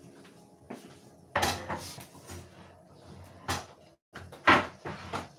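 Kitchen cupboard doors opening and shutting off to the side, with a few knocks. The loudest knock comes near the end, another about a second and a half in.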